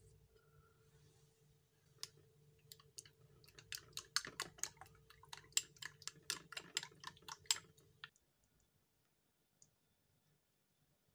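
Plastic spoon beating eggs in a glass bowl, clicking against the glass about five times a second. The clicking starts about two seconds in and stops abruptly near eight seconds.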